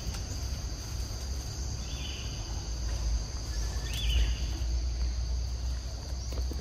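Steady, high-pitched insect drone holding two pitches, with a low rumble underneath. Two short high chirps come about two and about four seconds in.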